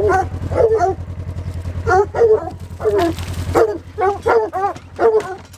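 Treeing walker coonhounds barking repeatedly, a few barks a second, with a short break about a second in. A steady low engine hum runs underneath.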